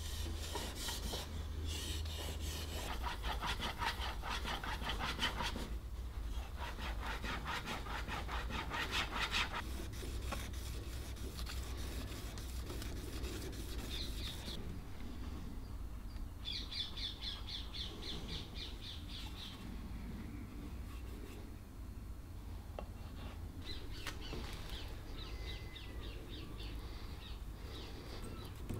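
Steel plane iron of a Stanley Bedrock No. 608 scraping back and forth on a sharpening stone in quick, even strokes, as the blade is honed and its back flattened. The strokes run in long steady runs for about the first ten seconds, then come in shorter spells and grow fainter toward the end.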